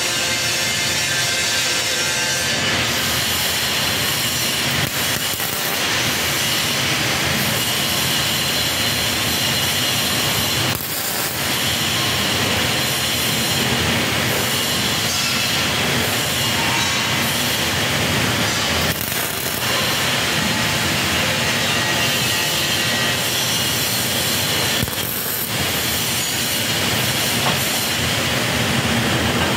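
Steady, harsh metalworking noise in a steel fabrication shop, briefly dipping every five to eight seconds.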